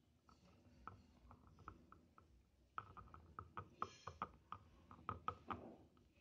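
Faint, quick taps and clicks of a small glass vaccine vial knocking against the mouth of a plastic dropper bottle as the crushed vaccine is shaken into it. The taps are sparse at first and come several a second from about three seconds in.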